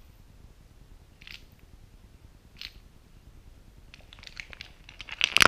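A hand-operated jointed puppet tapping and clattering on a floor as it is moved: a couple of faint ticks, then a quick run of light clicks and knocks near the end, the loudest at the very end.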